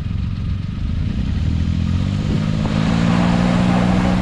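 Suzuki Jimny JB23's small engine revving up from a low rumble about halfway through and holding a steady, higher note under load. A rushing noise joins it as the tyres turn in the loose mud.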